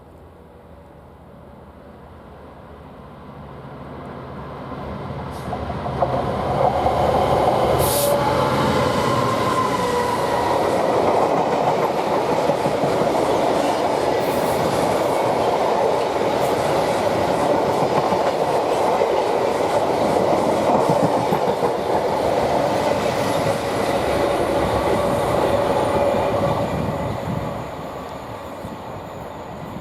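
A train approaching and running past on the line. It grows louder over the first six seconds, passes loudly for about twenty seconds, then fades near the end.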